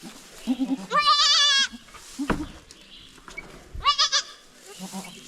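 A goat bleating twice, each a loud, high, wavering call, the first lasting under a second and the second shorter, about three seconds later.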